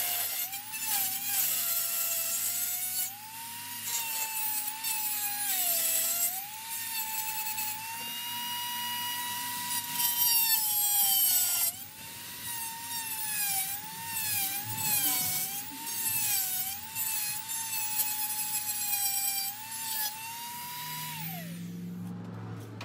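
Handheld rotary tool with a cut-off wheel cutting a sheet-metal bracket: a high motor whine that keeps dipping in pitch as the wheel bites into the metal and recovering as it eases off, over a grinding hiss. Near the end the tool is switched off and its whine falls away as it spins down.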